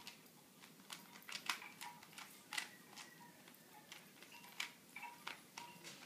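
A Rubik's cube being turned quickly by hand: faint, irregular plastic clicks as its layers are twisted, two or three a second.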